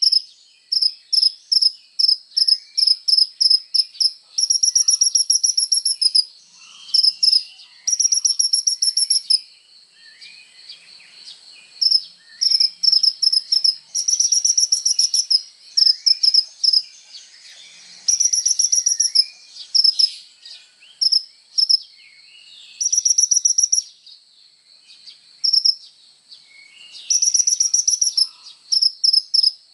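Sunbird (the 'kolibri ninja' of Indonesian bird-keeping) singing in long, lively bouts of sharp, high chirps. Single notes alternate with fast rattling trills, broken by short pauses. A steady high-pitched ringing runs underneath.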